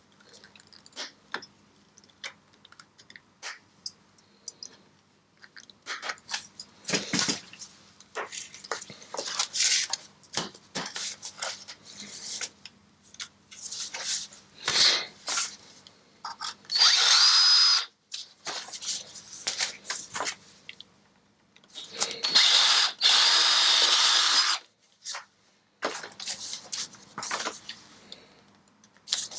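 Power drill running in two bursts, one about a second long and one about two and a half seconds long, with a steady high whine: drilling out the rivets that hold the baffle in an Akrapovic titanium exhaust silencer. Before the drilling come scattered clicks and scrapes of hand tools on metal.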